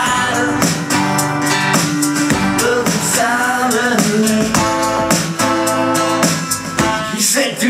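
A man singing, accompanied by strummed acoustic guitar.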